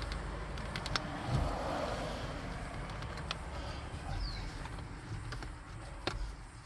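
A few sharp plastic clicks and taps as the Nissan Navara D40's steering-wheel airbag cover is pressed and worked by hand, the cover sitting out of square, over a steady low rumble. A bird gives one short falling chirp about four seconds in.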